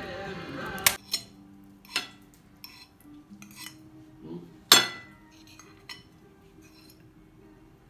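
Background music that stops about a second in, then a metal fork and serving utensils clinking and scraping against ceramic plates and a bowl as food is served, in scattered sharp clinks with the loudest near the middle.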